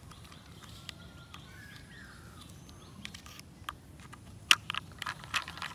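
Faint outdoor background with a faint bird call, then a scatter of sharp plastic clicks from about three seconds in, the loudest about halfway through, as a small plastic toy cement mixer truck and its detached drum are handled.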